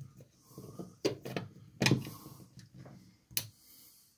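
A few light clicks and knocks from handling at the wall, the loudest about two seconds in.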